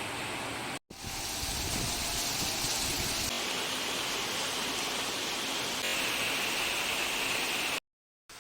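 Steady rain, a continuous even hiss, heard in several short clips cut together, with two brief drops to silence between them.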